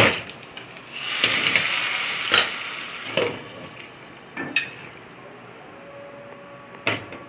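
Hot tempering of mustard seeds, dried red chillies and onion fried in oil and butter, poured into a pot of coconut-milk curry and sizzling sharply for about two seconds from about a second in. A knock starts it off, and a few clinks and knocks of metal cookware and the pot lid follow.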